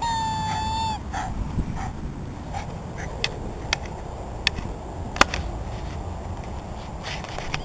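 A dog's squeaky toy gives one long, even squeak lasting about a second. After it come a few scattered sharp clicks as a Patterdale terrier plays with the toy.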